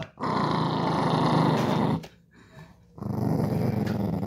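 Small dog growling twice in long, low, rumbling stretches, the first about two seconds long and the second starting about three seconds in, while guarding her treats from a reaching hand.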